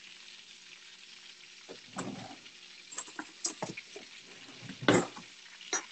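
Metal tongs and a knife clicking and scraping on a ceramic plate while cutting through crispy breaded chicken, with a sharp clatter about five seconds in. Underneath runs a steady hiss of oil sizzling in a frying pan.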